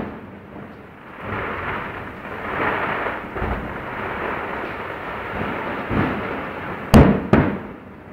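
Aerial fireworks shells bursting at a distance: a continuous rumble of bursts that swells and fades, then two sharp bangs about half a second apart near the end.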